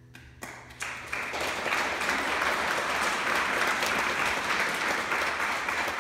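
Audience applauding: a few scattered claps that swell into full, steady applause within about a second and a half.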